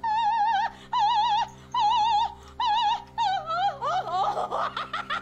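A woman singing operatic soprano in short phrases of held high notes with a wide vibrato, breaking near the end into quick swooping, sliding cries. A steady low hum runs underneath.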